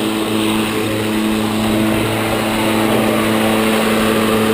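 Worx 56-volt cordless electric lawn mower running while cutting grass: a steady motor hum with the whir of the spinning blade, quiet for a mower.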